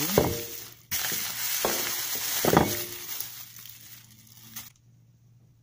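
Plastic shopping bags rustling and crinkling as they are handled, with a short break about a second in; it stops abruptly near the end.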